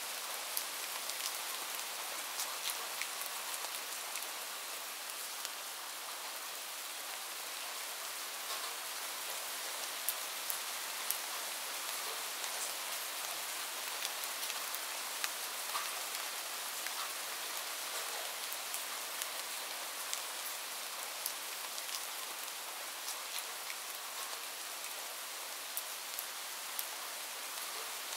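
Light rain falling steadily: a soft, even hiss with many sharp individual drop taps scattered through it.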